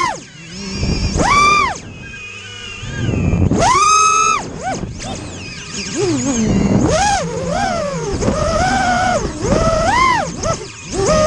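FPV quadcopter's brushless motors whining, the pitch swooping up and down again and again as the throttle is pushed and released.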